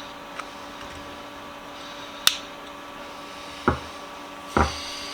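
Hand tools working at a steel C-ring (retaining ring) on a Stanley No. 700 corner vise: a few small metal clicks, one sharp snap about two seconds in, then two dull knocks near the end, over a steady hum.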